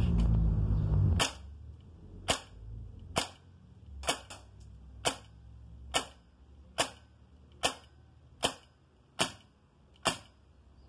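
Shark semi-automatic CO2 air rifle in 5.5 mm, firing spherical pellets shot after shot: about a dozen sharp cracks, roughly one a second, the gas of each shot cycling the action for the next, until the loaded pellets run out. A low rumble comes before the first shot.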